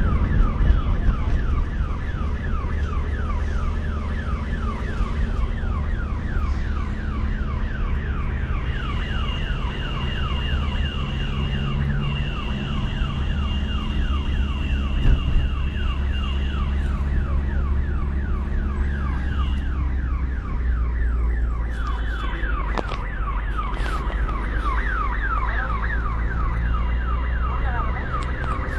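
Ambulance's electronic siren in a fast yelp of rapidly repeated falling sweeps, heard from inside the cabin over the low rumble of the engine and road.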